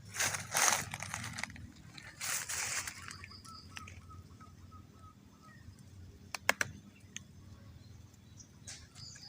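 Two bursts of rustling, then a faint run of short repeated chirps and a few sharp clicks.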